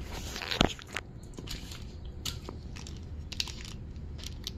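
Handling noise: a brief rustle and a sharp click about half a second in, another click a moment later, then scattered light clicks and crackles.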